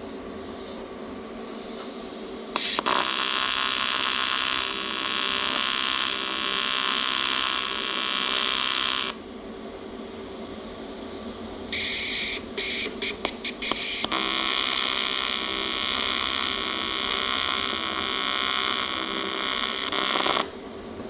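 AC TIG welding arc on aluminum buzzing steadily, as a return-line neck is welded onto an aluminum fuel tank. The arc runs in two long passes, with a stuttering restart of several short bursts between them, over a steady machine hum.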